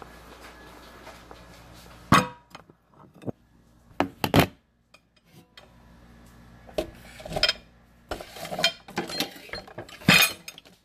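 Dishes clinking and clattering as they are handled and set down: a string of sharp knocks and clinks, one loud clack about two seconds in, more in quick clusters later, and another loud one just before the end.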